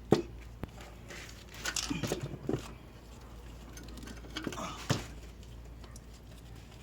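A few sharp knocks and clinks of metal engine parts being handled and lifted on an opened-up engine: one at the very start, one about half a second in, a cluster about two seconds in, and a sharper knock near five seconds.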